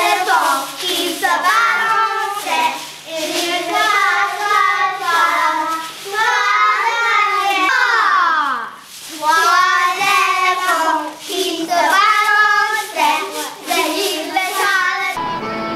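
Children singing a lively song, with a long falling swoop in the voices about eight seconds in. The singing breaks off near the end and steadier music takes over.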